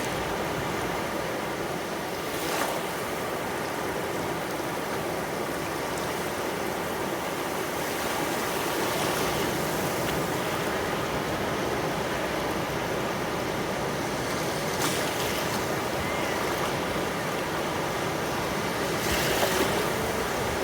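Mediterranean sea waves washing onto the beach: a steady surf wash with a few brief louder splashes as waves break, the loudest near the end.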